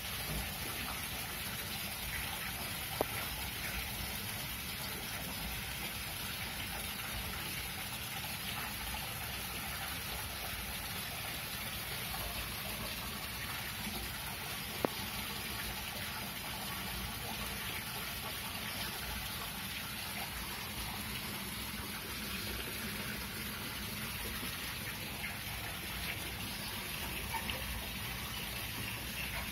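Steady patter of rain, with two sharp clicks, one about three seconds in and another near fifteen seconds.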